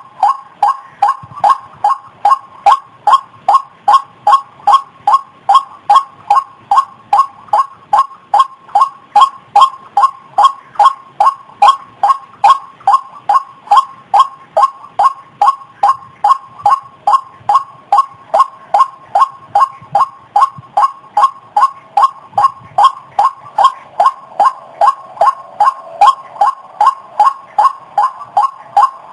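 White-breasted waterhen (ruak-ruak) calling: a loud, steady run of short, even notes, nearly three a second, repeated without a break.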